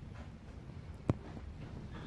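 A single sharp click about a second in, over a low, steady rumble.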